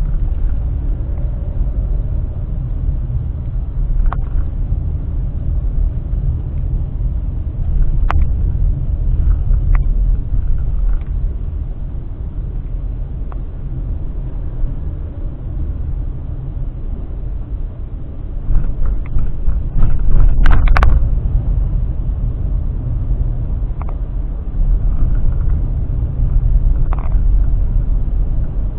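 Steady low rumble of a car driving, heard from inside the cabin through a dashcam, with occasional sharp knocks and a louder clatter of knocks around twenty seconds in.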